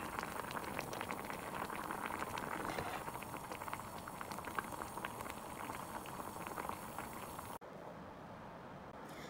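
Doenjang jjigae bubbling and popping at a hard boil in an earthenware pot. It cuts off suddenly about seven and a half seconds in, leaving a faint, even background.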